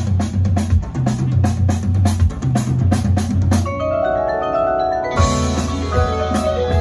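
Drum and bugle corps playing live: quick, even percussion strokes with mallet keyboards over a low bass line, then held chords swell in about four seconds in, and the full ensemble comes in louder about a second later.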